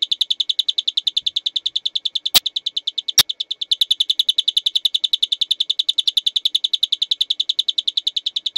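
Homemade electronic canary doorbell chirping through a small loudspeaker: a fast, even train of short high-pitched bird-like chirps, about nine a second. Two sharp clicks break in between two and three seconds in.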